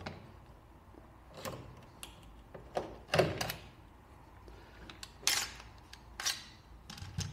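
Scattered metallic clicks and knocks from a Zbroyar Z15 AR-15 rifle being field-stripped: the upper receiver is swung off the lower, then set down and worked to draw out the bolt carrier group. The clicks come singly, about seven in all, the loudest about three and five seconds in.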